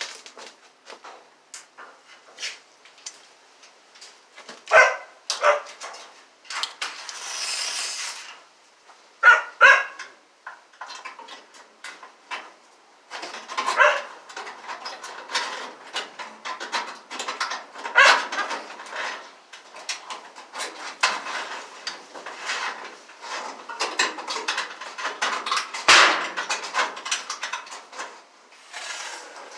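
A dog barking a few times, in short pairs, among many clicks and knocks, with a brief hiss about seven seconds in.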